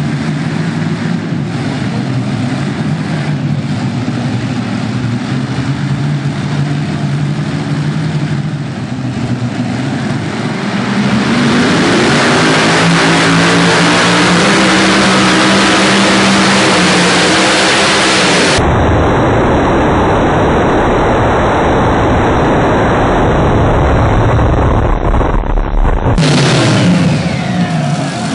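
Supercharged V8 engines of a multi-engine modified pulling tractor, running at moderate revs and then opened up to full throttle. They run flat out for about a quarter of a minute, and near the end the revs fall away.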